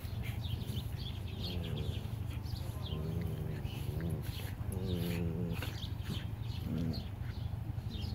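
Heeler-shepherd cross dogs play-wrestling, giving several short, wavering growls, the longest about five seconds in. Birds chirp in the background over a steady low hum.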